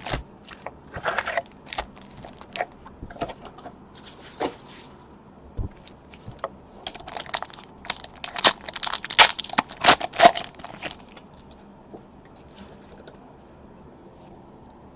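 A box of trading card packs being torn open: wrapping and packs tearing and crinkling, with scattered sharp clicks, busiest in the middle and dying down near the end.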